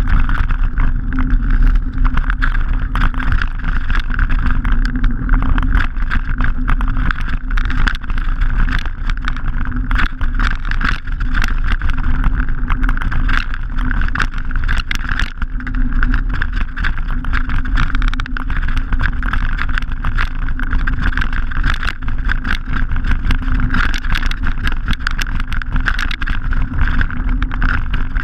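Mountain bike riding over a loose gravel track: a constant rumble of wind and tyre noise on the camera, with a steady stream of irregular clicks and rattles from stones under the knobbly tyres and the shaking bike.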